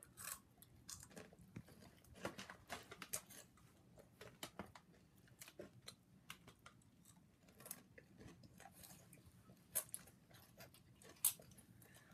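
Person chewing a mouthful of crunchy Scorn Karamucho corn snack mixed with chocolate flakes: quiet, irregular crunches, with one louder crunch near the end.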